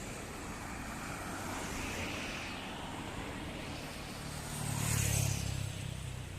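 Road traffic: a vehicle drives past close by, its engine rumble and tyre hiss swelling to a peak about five seconds in, then fading.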